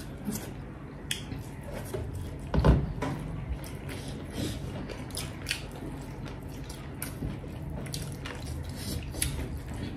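Close-up eating sounds: fingers squishing and mixing rice in metal plates, with chewing and wet mouth clicks coming as a steady string of small sharp ticks. A soft thump about two and a half seconds in.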